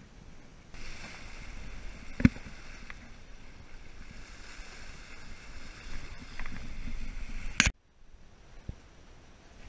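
Water rushing past a sailboat's hull at sea, a steady hiss over a low rumble. There is a sharp knock about two seconds in and another near the end, just before the sound cuts off suddenly.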